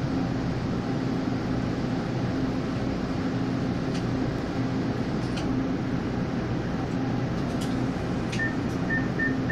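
Steady electrical and air-conditioning hum of a stationary Taiwan Railway local electric multiple unit waiting at the platform. A few faint clicks come midway, and a run of about five short, high beeps sounds near the end.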